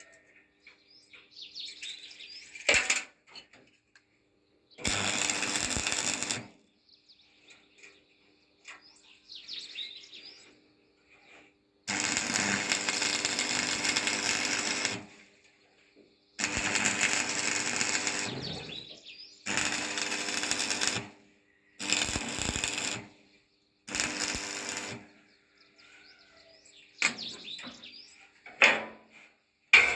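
A power tool working metal in repeated bursts, each one to three seconds long, with short pauses between them. A faint steady hum sounds in the gaps.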